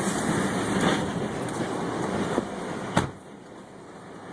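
Tornado wind buffeting a truck and rushing over the microphone. A sharp knock comes about three seconds in, and after it the wind noise is quieter.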